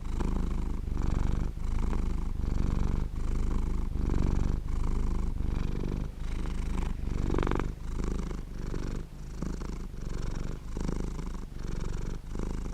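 A 16-year-old cat purring, a low, finely pulsing rumble that swells and breaks with each breath in and out, a little more than once a second.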